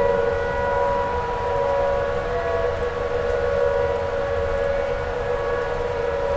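Tornado warning siren sounding a sustained, loud wail at a nearly steady pitch that wavers slightly, with a low rumble underneath.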